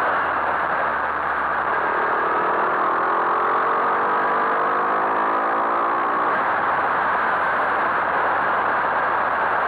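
Skyteam Monkey 125 cc single-cylinder four-stroke engine under way, its note rising steadily as it accelerates from about two seconds in to about six seconds, under a steady rush of riding wind.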